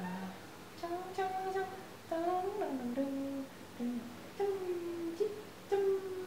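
A person humming a slow tune, holding separate notes that step up and down in short phrases.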